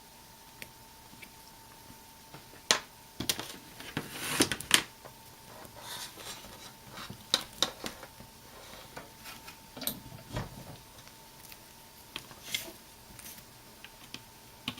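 Irregular plastic clicks and knocks as a universal laptop adapter's cable and tip are handled and plugged into a laptop, with a faint steady high tone underneath.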